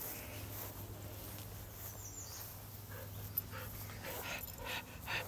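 Black Labrador panting, quick breathy strokes about four a second that start a few seconds in, after a run of play with the ball.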